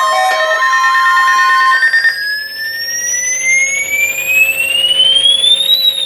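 Electronic siren-like alarm tone. Steady tones stop about two seconds in, then one tone climbs steadily in pitch for about four seconds to a high peak near the end and starts to fall again, like a slow siren wail.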